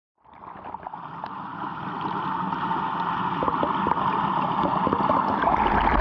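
Waterfall water rushing and splashing, with scattered droplet spatters, fading in from silence and growing steadily louder.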